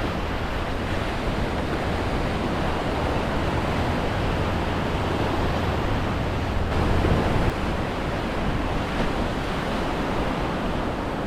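Gulf surf washing onto the beach in a steady wash, with wind rumbling on the microphone that eases about two-thirds of the way through.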